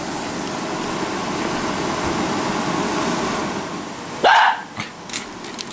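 A small dog barks once, sharply, about four seconds in, after a few seconds of steady close rustling noise.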